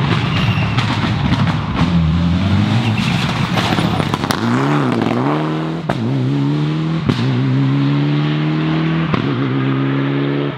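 Rally car engine passing close at speed, then accelerating away up the road. The engine note climbs, drops sharply at each of several gear changes about a second apart, and climbs again.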